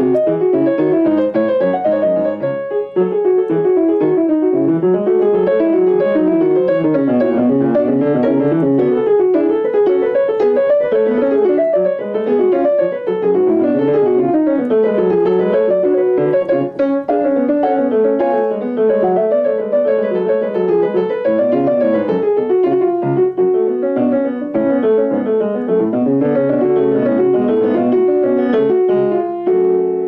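Background piano music: a flowing melody of rising and falling notes over chords, playing continuously.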